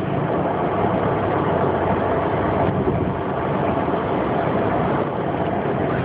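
Steady road noise of a moving car in traffic, heard from inside the cabin: engine, tyres and passing vehicles as one even rush.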